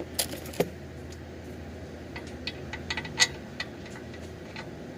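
Scattered light metallic clicks and taps of an oil drain bolt and hand tools being handled, the sharpest about three seconds in, over a faint steady low hum.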